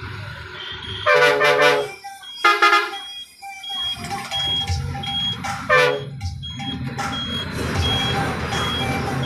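Engine of a large vehicle running, heard from inside its cabin, with three loud horn blasts in the first six seconds. From about four seconds in, a short high beep repeats about twice a second over the engine.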